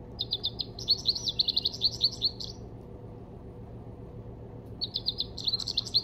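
Recorded American goldfinch song played from a bird-song sound book's small speaker: a rapid, high twittering warble lasting about two seconds, then after a pause a second run starting near the end.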